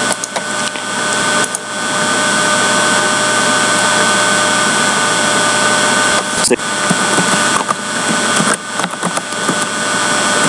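Loud steady hiss and hum with several high steady whining tones: the noise floor of a poor audio recording setup. A sharp click comes about six and a half seconds in.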